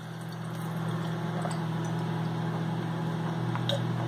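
Microwave oven running with a steady low hum while heating an egg in a bowl of water, with a few faint ticks near the end.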